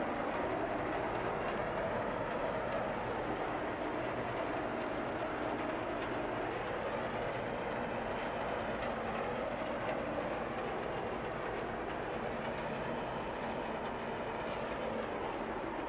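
Steady, even rumble of heavy machinery passing close by, with no pauses or changes in level.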